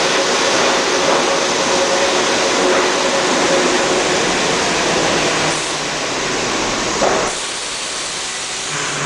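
A New York City Subway train running along an underground station platform: a loud, steady rush of wheels and running gear with a faint ringing tone early on. The noise eases off about halfway through and drops again after a short knock near the end, as the train slows.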